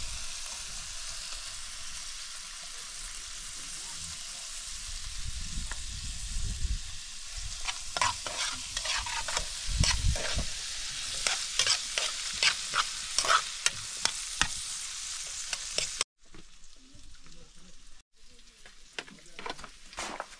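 Food frying with a steady sizzle, stirred with a utensil. From about eight seconds in, the utensil scrapes and knocks against the pan many times. About sixteen seconds in, the sizzle drops away suddenly, leaving quieter, scattered clinks.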